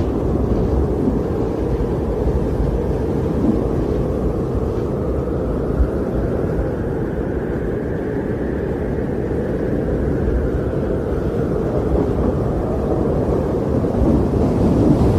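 Strong wind blowing in a steady low rush, with a gust that swells and rises in pitch around the middle and then eases off.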